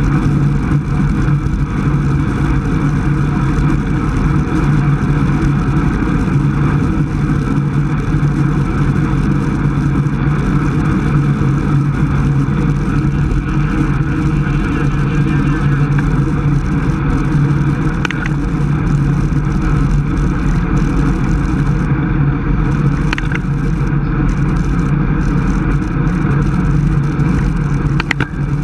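Steady wind rush and tyre road noise on a bike-mounted camera microphone, with a road bicycle moving at about 26 mph. A few faint ticks are heard in the second half.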